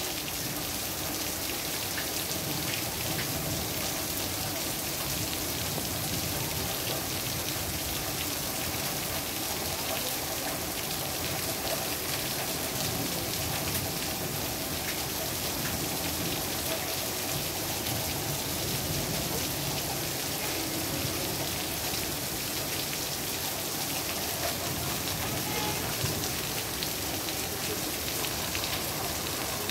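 Heavy rain falling steadily on wet pavement and parked cars: a dense, even hiss with many small drop splashes, unbroken throughout.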